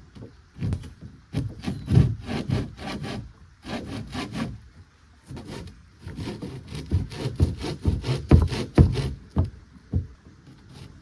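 Hand saw cutting through wood in quick back-and-forth strokes, with a short pause about halfway through.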